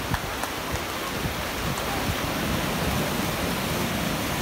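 Surf breaking on a sandy beach: a steady rush of waves in the shallows.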